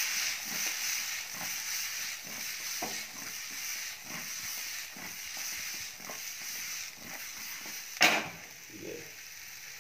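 Brinjal pieces sizzling in oil in a nonstick kadhai as the pan is shaken to toss them, with irregular soft knocks of the pieces and of the pan shifting on the gas-stove grate. A sharper knock about eight seconds in comes as the pan is set back down.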